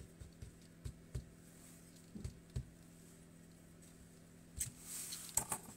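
Flower stems and leaves being handled while a stem is placed in an arrangement: a few soft clicks, then a brief rustle of leaves near the end.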